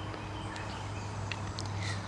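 Outdoor background with a steady low hum and a few faint short ticks in the second half.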